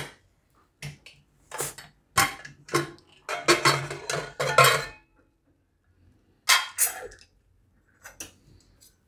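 Metal clinks and clanks of an inner-lid pressure cooker's lid being unlocked, tilted and lifted out of the pot: a string of separate knocks, thickest about four seconds in, with a few more later.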